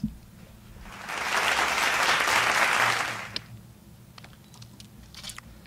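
Short burst of applause that swells and fades over about three seconds, greeting a correct answer in a quiz.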